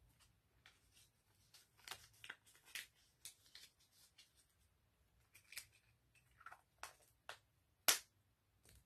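Easter eggs being filled with folded dollar bills: a scattered run of light clicks and paper rustles, with one sharper click near the end.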